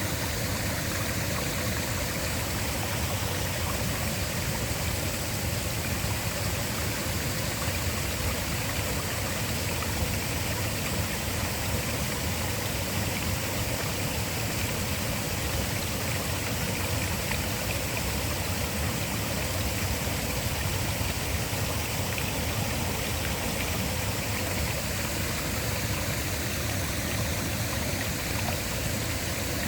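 Waterfall running: a steady, unbroken rush of falling water, with a deep rumble beneath a bright hiss.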